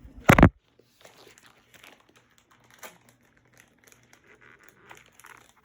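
Plastic packaging being handled to unbox a LEGO tiger: a short, loud burst of noise near the start, then faint, scattered crinkling.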